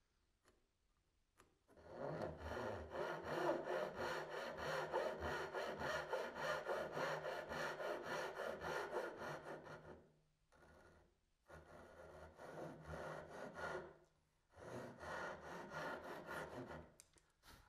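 Hand saw cutting across a wooden tenon shoulder, with quick, even strokes about four a second. A long run of about eight seconds is followed by three shorter runs after brief pauses.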